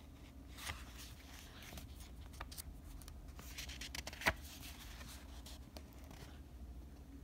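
Pages of a picture book being handled and turned: soft paper rustling with scattered light clicks, and one sharper tap about four seconds in.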